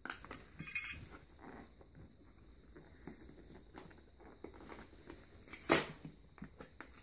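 A cardboard Priority Mail shipping box being slit along its tape with a utility knife and pulled open: scraping, tearing and crinkling of cardboard and tape, with louder rips about a second in and again near the end.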